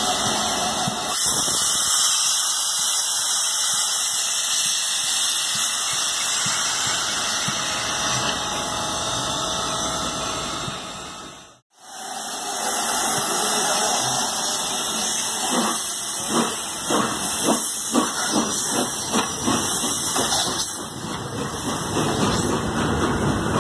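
Czechoslovak class 498.1 'Albatros' steam locomotive venting steam with a loud, steady hiss. After a cut, a series of regular exhaust chuffs joins the hiss as the locomotive pulls away.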